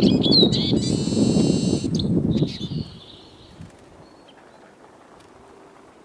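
Small songbirds calling: short high chirps and a buzzy, drawn-out call over crunching and rustling of dry grass and brush. About three seconds in, the crunching stops and only quiet background with an occasional faint chirp remains.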